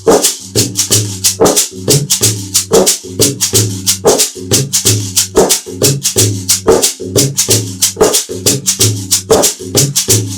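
Homemade shaker, a metal garam masala tin filled with a household item, shaken in a steady, even rhythm of crisp rattling strokes. It plays over backing music with a steady low beat.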